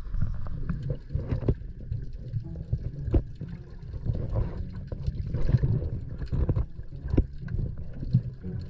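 Muffled underwater rumble with gurgling bubble bursts from a scuba diver, heard through an underwater camera housing, with scattered sharp knocks.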